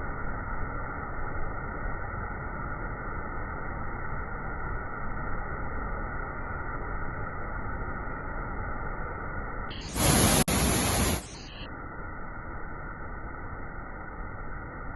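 Steady rushing noise of a waterfall, muffled for most of the stretch. About ten seconds in, it turns louder and brighter for a little over a second.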